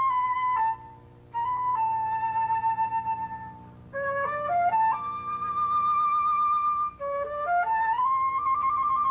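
Solo flute playing a slow melody in phrases: quick rising runs climb to long held notes with vibrato, with short breaths between phrases.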